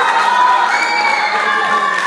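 Audience cheering, with several high-pitched voices screaming in long, held shrieks.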